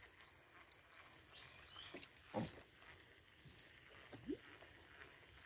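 Faint, short rise-and-fall chirping calls repeated about twice a second from a wild animal, with two louder low sliding calls: a falling one about halfway through and a rising one near the end.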